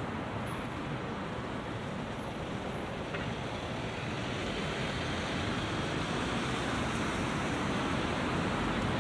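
Steady wash of road traffic noise from cars on a busy city road, growing a little louder in the second half.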